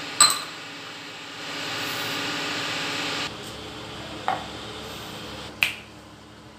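Roasted gram and white sesame seeds poured from small steel cups into a stainless steel mixer-grinder jar: a steady rush of seeds pattering on the steel for about two seconds. It is framed by clinks of the cups against the jar and a sharp click near the end as the lid goes on.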